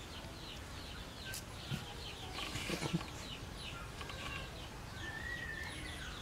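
Birds chirping: many short, high, falling chirps, several a second, with a few lower clucking sounds near the middle and a longer held whistle near the end.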